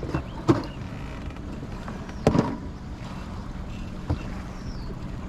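Three heavy knocks inside a boat, about two seconds apart, the middle one the loudest, over a steady low hum.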